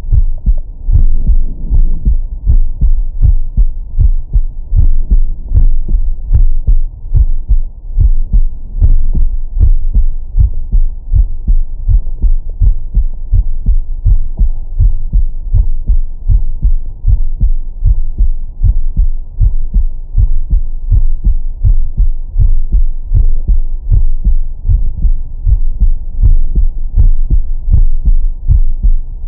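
A man's heartbeat heard through a Stemoscope digital stethoscope on the chest, set to its 20–1000 Hz heart filter: steady, regular deep thumps of the heart sounds, loud and clear, with nothing above about 1 kHz.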